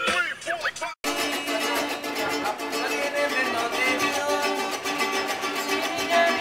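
Hip-hop music for about the first second, then a sudden cut to an acoustic guitar being strummed in a quick, steady rhythm by a subway busker.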